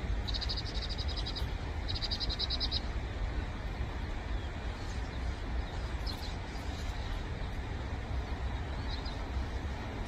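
Vinous-throated parrotbills calling: two rapid, high chattering trills about a second long each in the first three seconds, then a few faint short calls later. A steady low rumble runs underneath.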